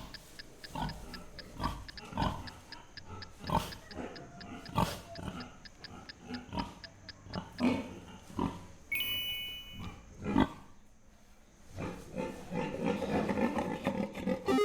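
An animal's recorded calls: many short calls at uneven intervals, a brief higher-pitched call about nine seconds in, and denser, more continuous calling near the end.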